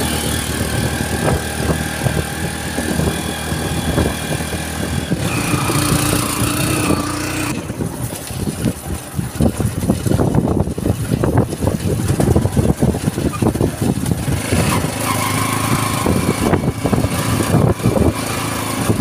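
Motorcycle engine of a tricycle (motorcycle with sidecar) running steadily under way, heard from inside the sidecar, with a lot of rattling and knocking through the middle stretch.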